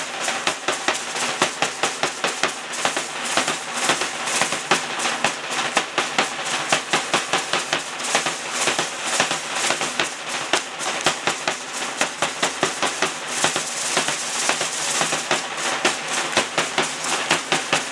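Rhythmic clacking and rattling from a troupe of danzantes dancing, keeping a fast, steady beat with their rattles and percussion, with drumming under it.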